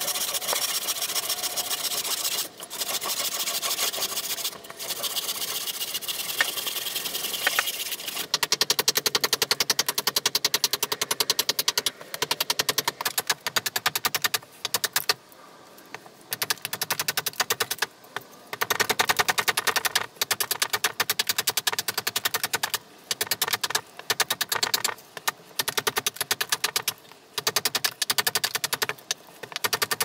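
A handsaw cutting through a wooden blank for the first several seconds. Then a hatchet strikes the wood in rapid runs of blows, bursts of a second or two with short pauses between, hewing the blank into a shovel.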